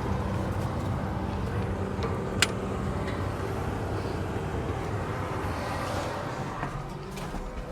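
New Holland T7 315 tractor engine running steadily, heard from inside the cab as an even low hum. A single sharp click about two and a half seconds in.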